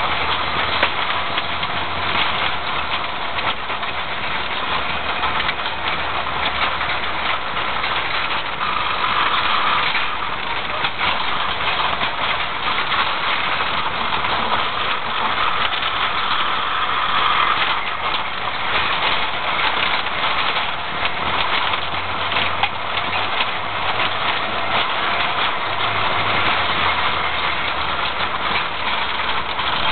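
Car driving along a dirt track, heard from inside the cabin: the engine runs under a steady tyre and road noise, with many small knocks and rattles from the rough surface.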